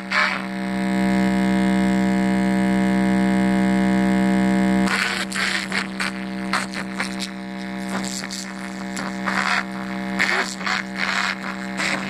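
A sound system's speakers playing a loud, steady buzzing tone with many overtones for about four seconds, after which the tone carries on more quietly under busier music until near the end.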